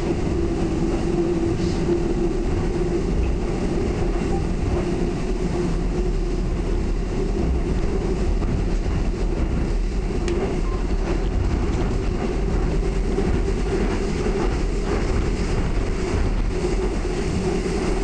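Seoul Subway Line 2 train running, heard from inside the carriage: a steady rumble of wheels on rail with a steady hum, and a few faint clacks.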